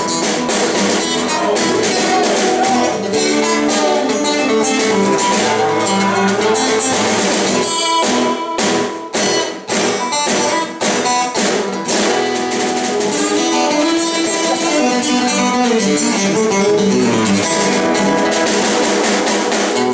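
Acoustic guitars playing an instrumental passage of a country song: strummed chords with single notes picked over them.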